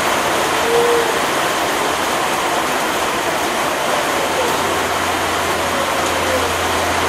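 Steady heavy rain, an even hiss with no breaks. A faint low hum comes in about halfway through.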